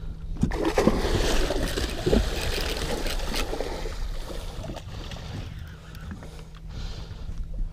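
A hooked muskellunge thrashing and splashing hard at the surface beside the boat as it is netted, loudest for the first few seconds and then easing.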